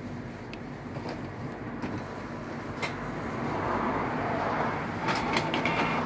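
Canon G3420 inkjet printer at work: a few light clicks, then from about halfway the print mechanism whirs more loudly, as the printer runs its nozzle check print.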